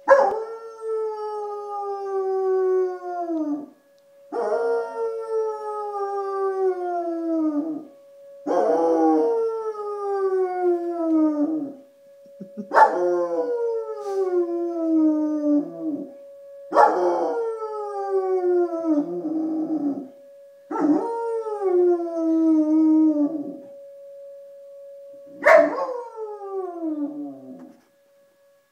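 German Shepherd howling seven times, each long howl sliding down in pitch, about one every four seconds. Under the howls a faint steady tone from an outdoor storm warning siren, on its monthly test, plays throughout and fades out near the end; the dog is howling along with it.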